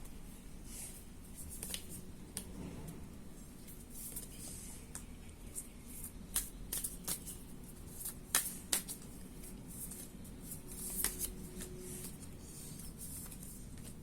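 A tarot deck being shuffled and handled: irregular crisp snaps and flicks of the cards, busiest in the middle.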